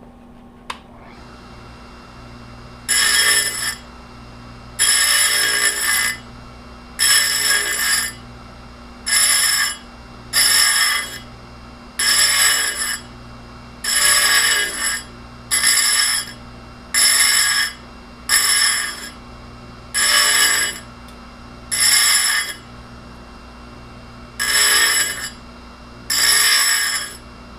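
Tecomec Jolly Evo chain grinder running steadily, its grinding wheel biting in about fourteen short passes, each under a second, roughly every one and a half to two seconds, as the wheel's edge is profiled.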